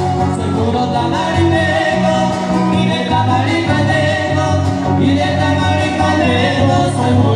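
Tamaulipas-style huapango music playing continuously, with a singing voice over a steady bass line.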